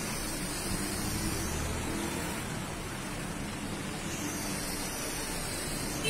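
Steady background noise: a constant hiss with a low rumble and faint hum, with no distinct events.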